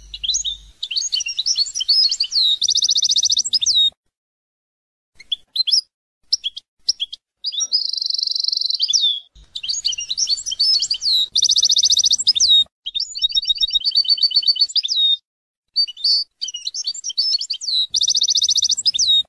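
European goldfinch singing: phrases of high twittering notes and fast buzzy trills, broken by a few short pauses.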